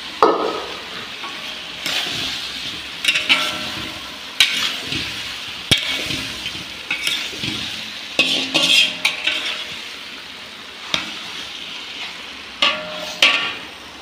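Potatoes, parwal (pointed gourd) and masala sizzling in oil in a pot while a spatula stirs them. The spatula scrapes and knocks against the pot every second or two over a steady frying hiss.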